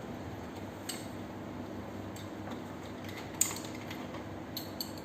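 A few sharp metallic clicks and clinks of bike parts and tools being handled during assembly: one loud click a little past the middle and a quick cluster near the end, over a steady low hum.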